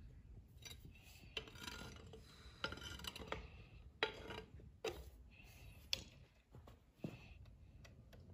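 Iron rods and tongs scraping and clinking against a metal crucible of molten metal, about seven sharp clinks amid scraping.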